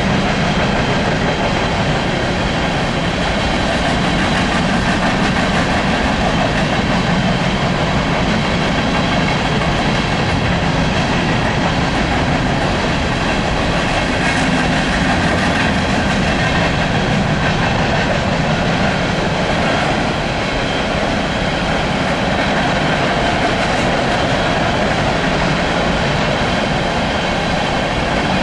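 Empty coal hopper cars of a long freight train rolling past, a steady loud rumble and clatter of wheels on rail.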